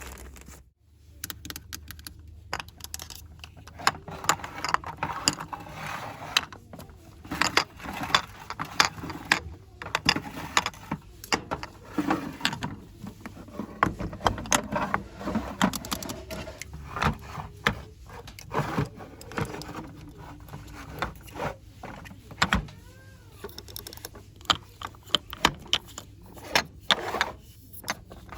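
Fast, aggressive ASMR handling of small shop goods: rapid, irregular taps, clicks and scratches, with a short squeak about two-thirds of the way through.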